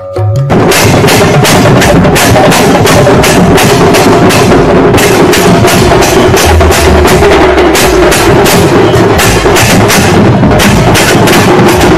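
Large brass hand cymbals clashed over and over in a fast, steady rhythm, about four strikes a second. They cut in suddenly about half a second in and go on loud and ringing, with a few low drum-like thuds underneath.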